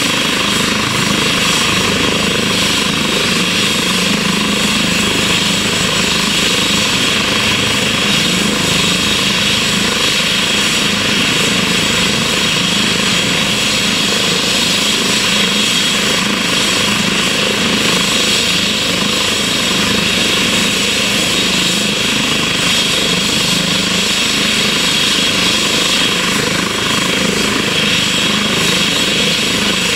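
Air ambulance helicopter running on the ground: steady turbine whine and rotor noise, unchanging and loud throughout.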